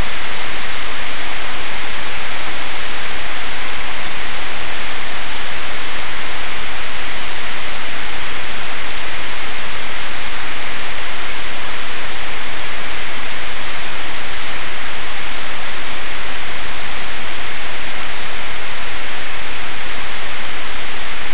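Heavy rain falling steadily on trees, lawn and a puddled paved driveway: an even, unbroken hiss.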